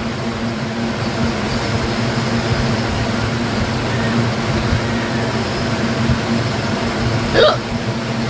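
A woman's hiccup, a single short voiced "hic" with a rising pitch near the end, over a steady background hum.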